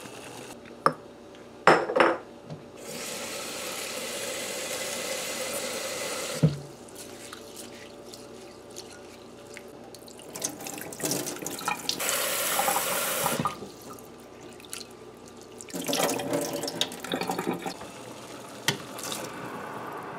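Kitchen tap running into a stainless steel sink as rice is rinsed by hand in a bowl. The water starts and stops in several stretches, with a few sharp knocks of the bowl in between.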